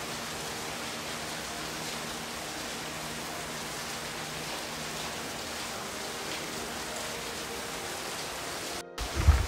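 Steady rush of water, an even hiss with no separate drops standing out. It cuts off abruptly near the end, followed by a loud low thump.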